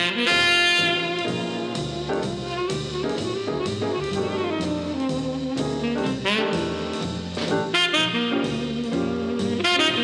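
Instrumental jazz: a saxophone carries the melody with bending, sliding notes over brass backing, bass and drum kit.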